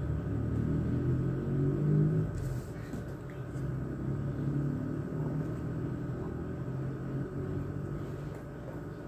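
Low engine rumble of a passing motor vehicle, swelling about two seconds in and then slowly fading.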